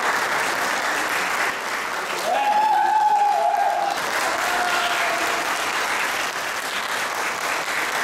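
Audience applauding steadily for the performers' bow. About two seconds in, one long high call rises above the clapping, with a shorter, fainter one a little later.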